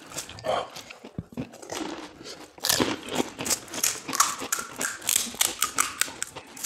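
Crisp, hollow fried panipuri shells cracking and crunching as they are poked open and bitten, with chewing. The crackles come thick and fast from about two and a half seconds in.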